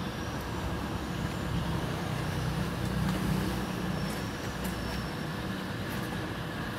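A steady low engine rumble that grows louder between about two and four seconds in, then eases back.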